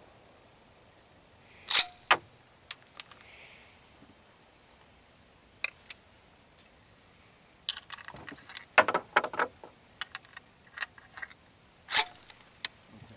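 Metallic clicks and clacks from handling a Remington 760 pump-action .30-06 rifle: two quick pairs of sharp clicks about two and three seconds in, a single click near six seconds, then a run of irregular clicks, rattles and knocks from about eight seconds on, with a sharp click near the end.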